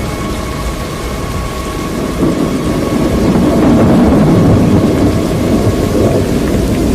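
Thunder rumbling over steady rain, the rumble swelling about two seconds in and loudest near the middle.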